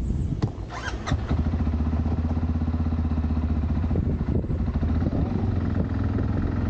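Quad bike engine running at a steady idle, settling into an even, unchanging tone about a second in after a few clicks.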